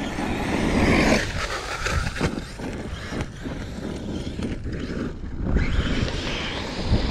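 Traxxas Sledge electric RC monster truck driving on a dirt track, its motor whine falling in pitch over the first second or so. Wind rumbles and buffets the microphone throughout.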